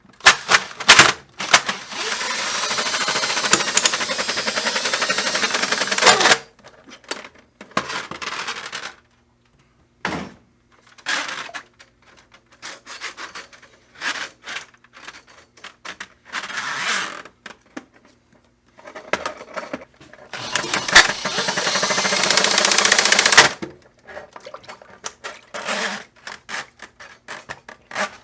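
Power drill spinning a drain snake in two steady runs of about four seconds each, with short knocks and clatter of the snake and tub between runs; the snake is being fed into a clogged laundry tub drain.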